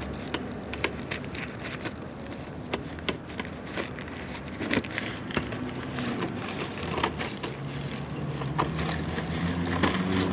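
Footsteps and handling clicks over a steady low hum, with a low droning sound growing louder near the end.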